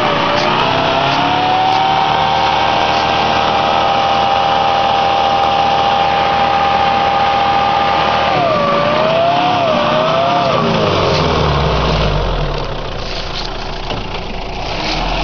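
Mitsubishi L200 pickup's engine held at high revs under load on a steep off-road climb, its pitch steady for several seconds, then wavering up and down before falling away about ten seconds in to a low rumble.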